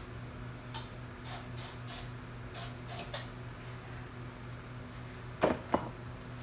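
About six short hissing bursts in the first half, then two sharp knocks in quick succession near the end, over a steady low hum.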